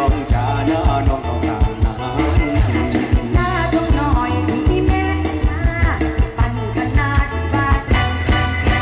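Live Isan mor lam band music played loud over a stage PA: a heavy, steady dance beat with singing over it.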